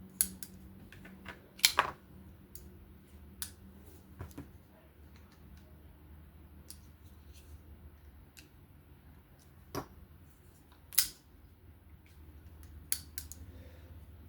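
Scattered sharp clicks and light taps of a folding knife's small parts and a screwdriver being handled during reassembly. The loudest come about two seconds in and about eleven seconds in.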